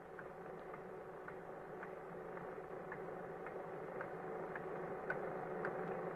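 Tractor-driven water pumping machinery running: a steady buzzing hum with a regular click about twice a second, slowly growing louder.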